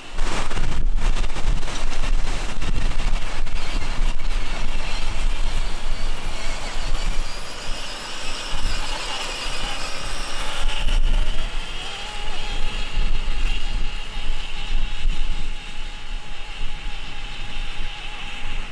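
Traxxas TRX-4 RC truck with a HobbyWing XeRun sensored brushless motor driving through puddles and wet mud: a high whine from the electric motor and gears, with water splashing from the tyres.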